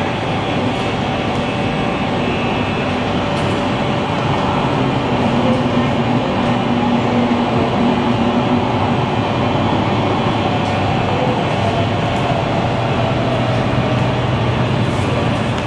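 Steady rumble of an underground MRT station platform with a train running nearby behind the platform screen doors, its low motor hum swelling a little in the middle and shifting lower near the end.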